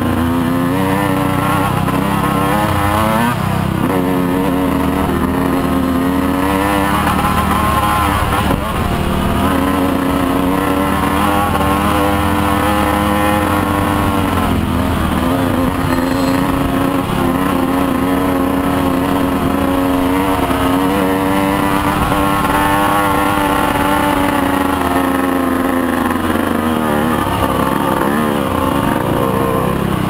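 Motorcycle engine running steadily under way. Its note dips and climbs again about four times.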